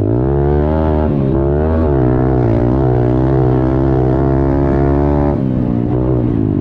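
Honda CRF110 pit bike's single-cylinder four-stroke engine revving hard under race throttle, its pitch dipping and climbing again several times as the rider works the throttle and gears. About five seconds in it eases off and the pitch drops.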